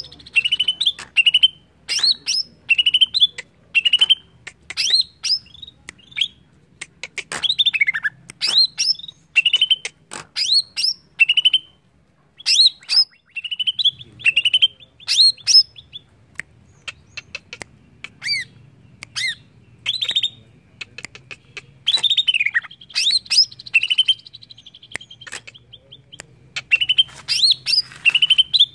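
Green leafbird (cucak ijo) singing: rapid runs of short, sharp whistled notes and chips, some sweeping up or down, in bursts with brief pauses, one of them about twelve seconds in.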